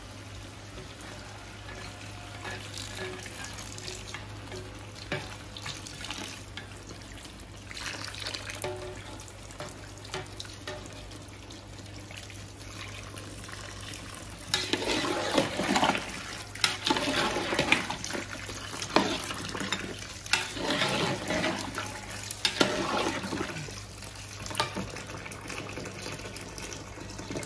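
Water being poured into a large aluminium pot of browned mutton curry, splashing into the hot meat and masala to make the gravy, with a slotted spoon scraping and stirring. The pouring is loudest from about halfway through, in uneven surges lasting several seconds.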